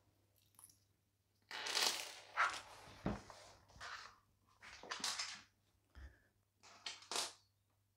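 Handling noise: a run of short rustling and scraping bursts as a small limit switch, its screws and a mounting bracket are set down on a floor, with a couple of soft low knocks.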